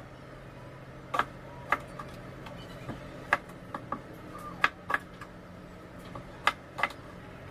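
Chef's knife slicing king oyster mushrooms on a cutting board: about nine sharp, irregularly spaced taps of the blade striking the board. A low steady hum runs underneath.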